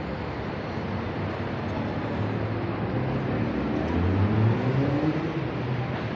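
City street ambience with a motor vehicle's engine nearby, its pitch rising and loudest about four seconds in.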